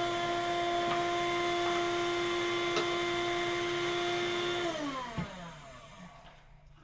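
Vacuum cleaner motor running with a steady whine, with a couple of light clicks. A little under five seconds in it is switched off, and its pitch falls as the motor spins down.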